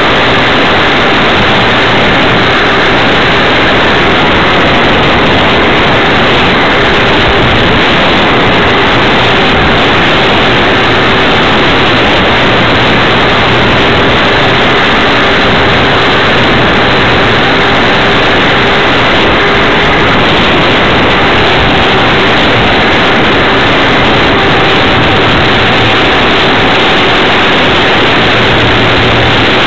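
Radio-controlled Tiger Moth model biplane in flight, heard from its own onboard camera: a loud, steady rush of airflow and motor-and-propeller noise, with a faint steady hum beneath it.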